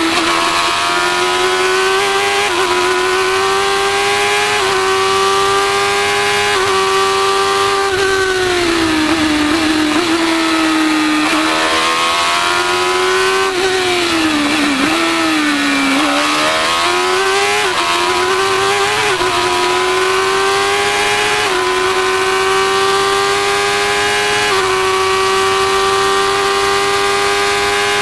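A Formula 1000 race car's motorcycle-derived 1000 cc engine at racing revs, heard from onboard. It pulls hard and holds high revs, drops in pitch twice around the middle with quick rev blips as the car brakes and downshifts for corners, then climbs again.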